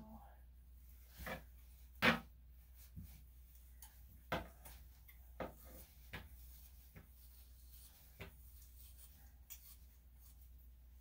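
Scattered sharp snips of grooming scissors cutting through a dog's thick coat, roughly one a second and uneven, the loudest about two seconds in, with a low steady hum underneath.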